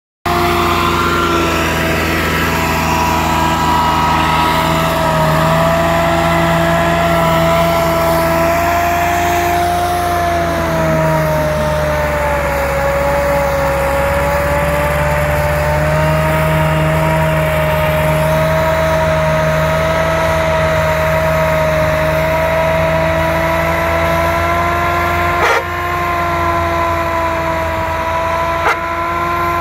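Massey Ferguson 385 tractor's diesel engine running hard and labouring under the load of an overloaded trolley, its pitch sagging about halfway through and then picking up again. Two brief knocks sound near the end.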